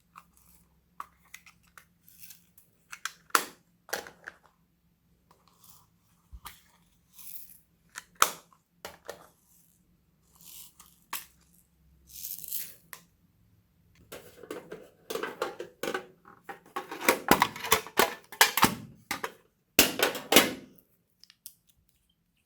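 Homemade slime being worked by hand: irregular sticky crackles and squelches, scattered at first, then coming thick and louder for several seconds near the end.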